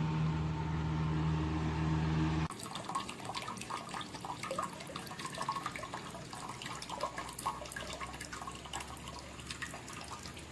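Running water, with a steady low hum for about the first two and a half seconds that stops abruptly. After that, water splashes and trickles in many small spatters, like a small fall or fountain into a pond.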